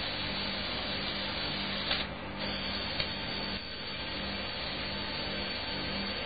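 Small LEGO electric motors whirring steadily through plastic gearing as they drive the platform up and down its three legs. There are two sharp clicks, about two and three seconds in.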